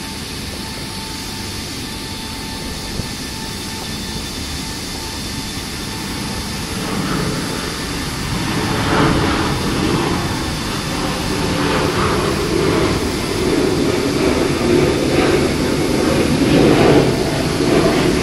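GE90-115B turbofan of a Boeing 777 on a ground run after a water wash, run to clear water held in the engine core. A steady whine gets gradually louder, and a gusty rumble builds from about seven seconds in.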